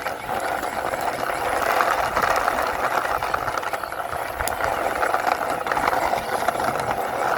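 Small toy car pushed along by hand, its wheels rolling with a steady, dense rattle.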